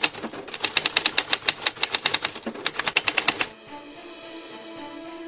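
Typewriter keys clacking in quick, irregular strikes, stopping about three and a half seconds in. A sustained music drone of several steady tones follows, slowly swelling.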